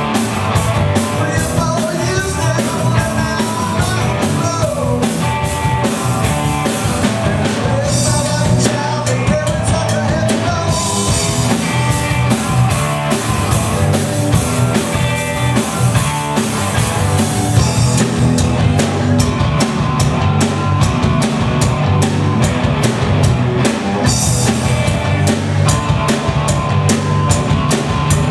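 Live rock band playing a song on electric guitars, bass guitar and drum kit, with a steady driving beat.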